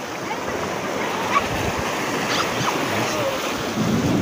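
Small waves washing over a shallow reef, a steady rushing hiss. Wind buffets the microphone, picking up again near the end.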